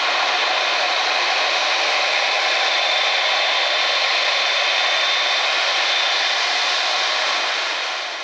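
Jet engines of a Boeing 787 taxiing at low power just after turning off the runway: a steady rush with a thin, high whine in the middle, fading out at the end.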